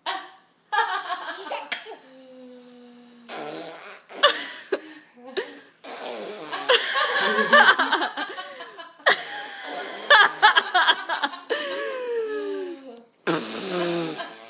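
A baby blowing raspberries: repeated buzzy, fart-like noises made with the lips, mixed with bursts of laughter.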